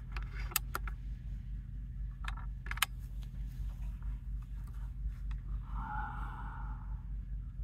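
Sharp metallic clicks of a Benjamin Bulldog .457 big-bore PCP air rifle being loaded and cocked: a few clicks at the start and a couple more about two to three seconds in. A steady low rumble runs underneath, and a brief soft hiss comes about six seconds in.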